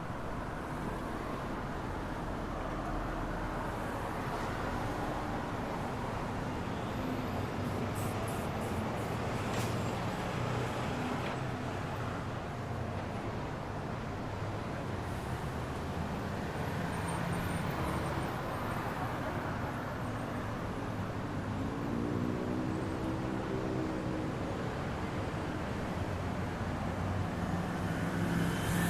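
City street traffic: a steady wash of passing cars, with one vehicle's engine heard more distinctly about three-quarters of the way through.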